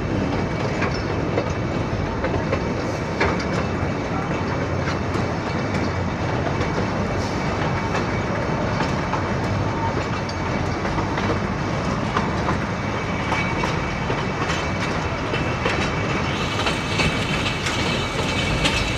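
Matheran Hill Railway's narrow-gauge toy train running along its track, heard from inside a moving carriage: a steady running noise of the carriages with occasional faint clicks from the wheels.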